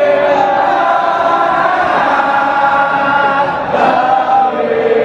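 A stadium crowd of football supporters singing a chant together, many voices holding long notes in unison. There is a short break and a new line begins about three and a half seconds in.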